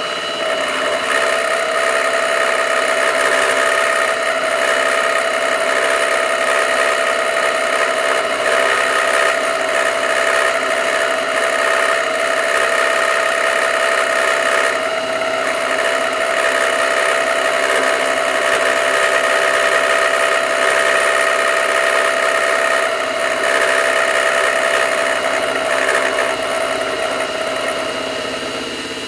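Milling machine with an end mill side-cutting steel bolt stock: a steady machining sound with a constant whine, chips spraying off the cutter. It eases slightly near the end.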